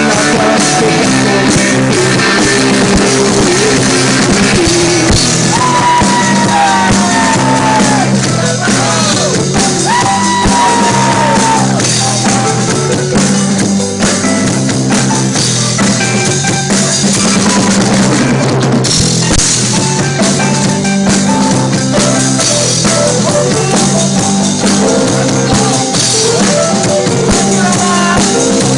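Rock band playing live, a drum kit keeping a steady beat under bass and pitched instruments, with a few gliding notes a third of the way through.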